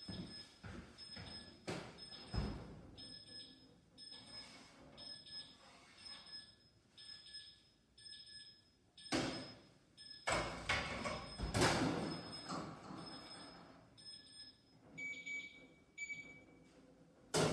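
An electronic timer beeping in a high-pitched pattern that repeats about twice a second, the signal that the cookies are done baking. Loud clattering and knocks come about nine to twelve seconds in, from the oven door and baking tray being handled.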